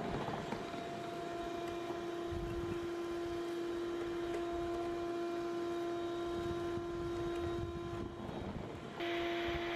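RIDGID wet/dry shop vacuum running in blow mode: a steady motor whine with rushing air as it blows through a long PVC pipe extension to clear leaves out of a roof gutter. The sound dips briefly about eight seconds in, then comes back steady.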